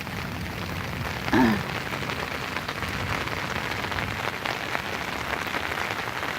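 Steady rain falling on the ground and wet surfaces.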